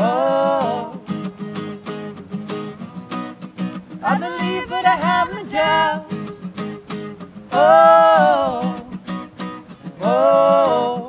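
Two acoustic guitars strummed in a steady rhythm, with sung vocal phrases of held notes coming in several times over them.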